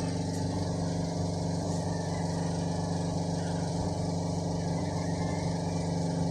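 Steady mechanical hum from a machine running at constant speed, even and unchanging throughout.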